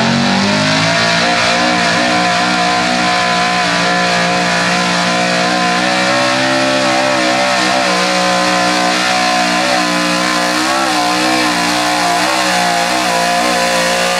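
The engine of a modified 4x4 Chevrolet pickup running flat out under load as it pulls a weight-transfer sled, its revs holding high and steady with a slight waver.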